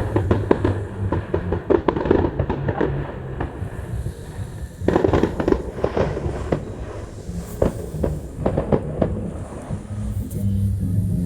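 Fireworks display: volleys of sharp bangs and crackles in dense clusters, thickest in the first three seconds and again about five seconds in, thinning out near the end.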